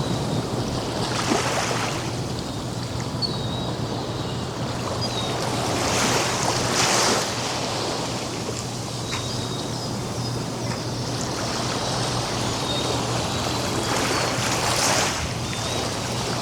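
Ocean waves breaking on a sandy beach: a continuous surf wash that swells three times, about a second in, around six to seven seconds, and near the end. Faint short bird chirps sound now and then above the surf.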